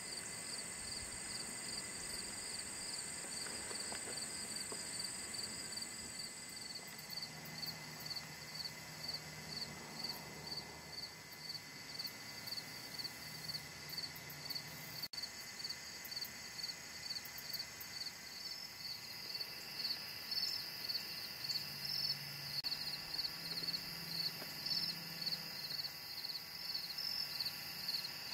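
Evening insect chorus, crickets or similar, chirping steadily about two to three times a second. A higher continuous trill runs alongside it for the first several seconds and then fades out.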